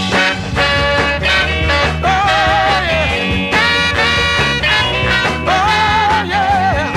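Soul music without the lead vocal: bass and backing band playing under a melody line that holds wavering notes twice.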